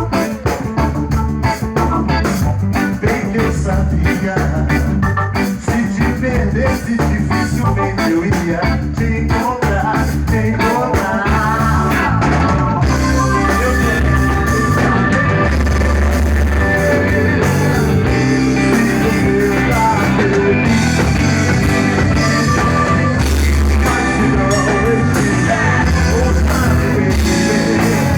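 A band playing a reggae-influenced Brazilian pop song with a steady beat. The mix becomes fuller and more even about twelve seconds in.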